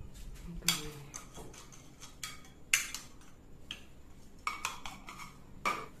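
Plastic and metal parts of a bullet mixer grinder clicking and clacking as they are handled and set down on a table: a series of irregular sharp knocks, about eight in all.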